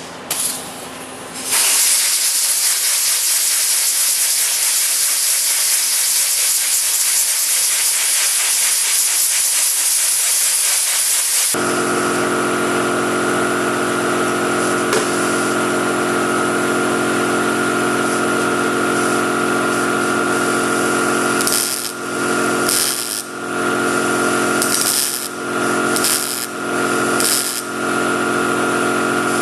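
A loud steady hiss for about ten seconds, then a power tool running with a steady whine, cut briefly several times near the end, as sheet-metal work on the cowl patch goes on.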